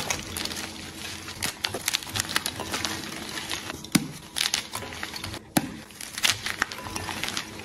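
Blocks of PNP gym chalk broken and squeezed by hand: dry crumbling and crackling of powdery chalk, with a sharper snap about four seconds in and another a second and a half later.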